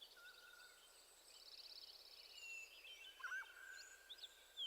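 Faint birdsong: several small birds chirping and whistling, with a short rapid trill about a second and a half in.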